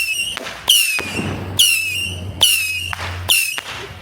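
Consumer firework cake firing a rapid string of whistling shots, about one a second. Each shot starts sharply with a short high whistle that dips in pitch and then holds, with crackle in between.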